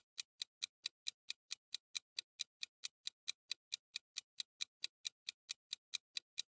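Clock-style countdown ticking sound effect, even quick ticks at about four to five a second, timing the pause for answering a quiz question.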